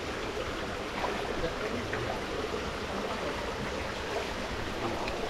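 Steady rush of flowing water in a small stream.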